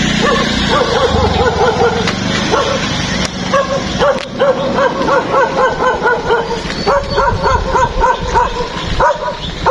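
A dog yapping in quick runs of short, pitched yelps, about four or five a second, with brief breaks between the runs.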